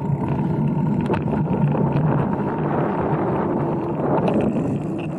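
Steady rumble of wind on the microphone and a mountain bike rolling along the trail.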